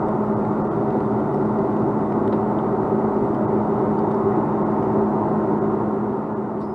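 Steady cabin drone of an Airbus A330 in the climb, its Rolls-Royce Trent 700 engines and the airflow heard from inside the cabin, with a constant low hum running through it.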